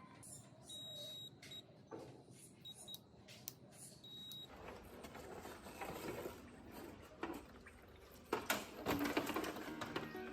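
Scattered light clicks, taps and clatter of small parts and tools being handled, with a few short high beeps in the first few seconds and busier, louder clattering near the end.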